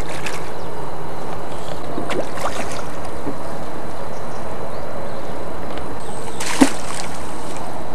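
A hooked carp splashing at the water's surface as it is played in toward the landing net: a few short splashes, then one sharper, louder splash near the end, over a steady background hiss.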